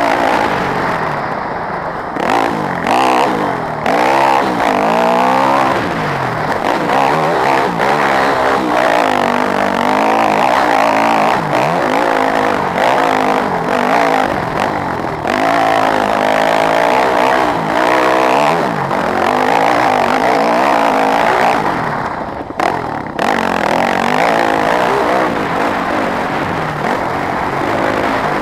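Yamaha WR250F dirt bike's 250 cc four-stroke single-cylinder engine revving up and falling back again and again while being ridden, with a brief dip late on when the throttle drops off.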